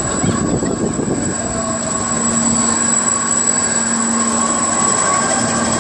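Machinery of a spinning, tilting disc amusement ride running, a steady mechanical rumble. A low hum joins it about a second and a half in.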